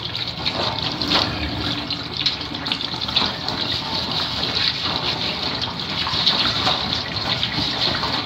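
Water running steadily from a tap, splashing, with small irregular clatters in the stream.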